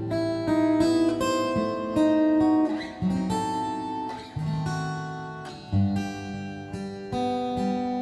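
Recorded music played back on a hi-fi speaker system: an acoustic guitar picking a slow melody over low bass notes, the instrumental intro before the vocal comes in.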